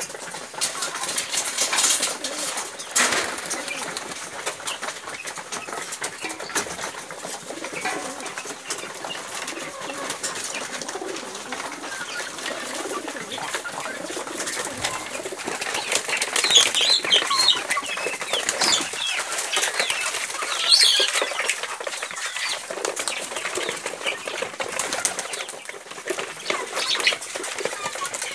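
A flock of kienyeji chickens and domestic pigeons: wings flapping and pigeons cooing, with many short, high chirping calls from about halfway through.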